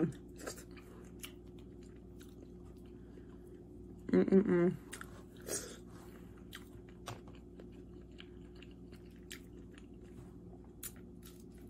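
Close-miked eating of crab legs: chewing with scattered small crunches and clicks of mouth and shell. A short hummed "mm" comes about four seconds in.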